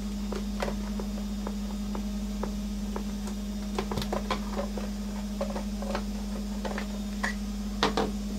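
Scattered light clicks and taps of hands working a plastic speaker-dock casing apart, with a cluster of louder clicks near the end, over a steady low hum.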